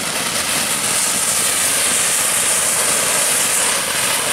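Ground fountain firework spraying sparks with a steady, loud, high-pitched hiss.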